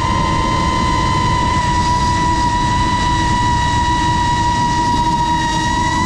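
FPV racing-style quadcopter's brushless motors and propellers whining at a steady high pitch, with rushing airflow noise underneath.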